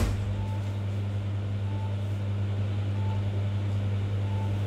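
Steady low electrical hum, with a faint short beep repeating about every 1.3 seconds and a single click right at the start.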